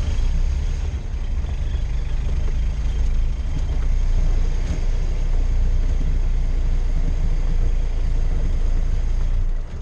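Ford Model TT truck's 20 hp four-cylinder flathead engine running steadily as the truck drives along, heard from inside the open cab as a steady low rumble; it eases slightly just before the end.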